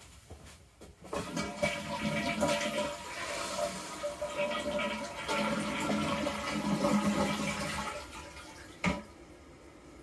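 Toilet being flushed: water rushes through the bowl for about seven seconds and dies down near the end, followed by one short knock. Its fill valve is newly replaced, and there is no hissing from the tank.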